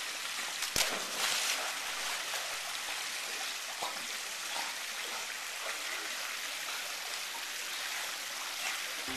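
Steady splashing of water spilling over a spa's stone wall into a swimming pool, with a single sharp knock just under a second in.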